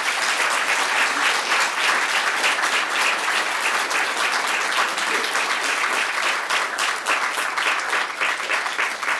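Audience applauding, a dense steady clapping that begins abruptly and holds throughout.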